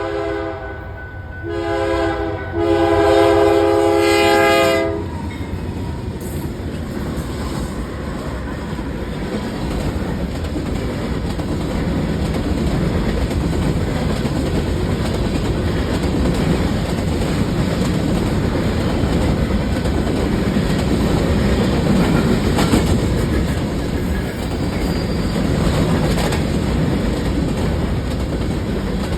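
Locomotive horn sounding a chord in three blasts: the first ends about a second in, a short one follows, and a longer one stops about five seconds in. The train then runs by with a steady rumble of engine and wheels on the rails, growing louder over the next several seconds and then holding.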